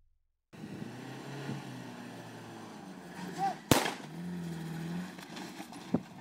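A single sharp rifle shot about three and a half seconds in, over the steady running of an idling vehicle engine, with a smaller sharp click near the end.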